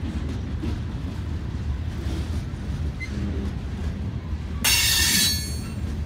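Freight cars rolling past on a curve: a steady low rumble of wheels on rail, broken about five seconds in by a loud, brief high-pitched squeal of wheel flanges against the rail.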